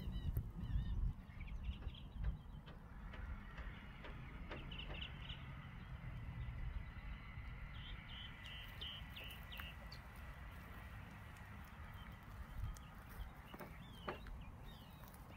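Small birds chirping in short runs several times, over a low rumble of wind on the microphone.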